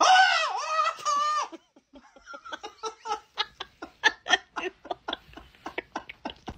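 A high, wavering cry for about a second and a half, followed by a man laughing hard in quick, repeated bursts.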